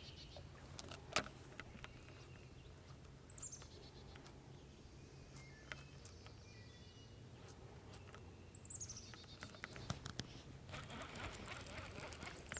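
Faint outdoor birdsong. A bird gives a high, quickly descending string of short notes twice, about five seconds apart, with a few softer chirps in between, over a low steady hum and a few light clicks.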